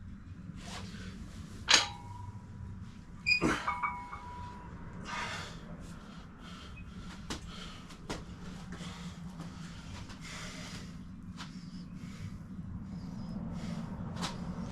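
Metal gym weights clanking: a sharp clank with a brief ringing tone about two seconds in, then a second clank with a short rattle a second and a half later.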